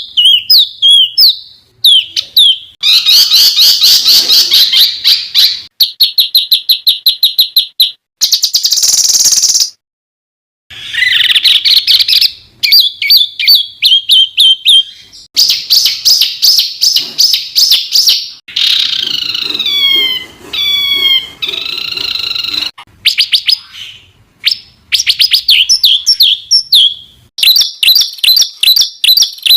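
Songbird 'masteran' tutor track: loud, fast series of repeated chirps, rattling trills and sweeping whistles from several birds, spliced together with abrupt changes and a brief silent gap partway through.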